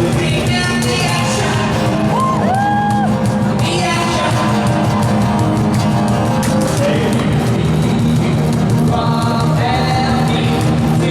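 Live rock band playing a song at full volume, with a singer's voice over drums, bass and guitars.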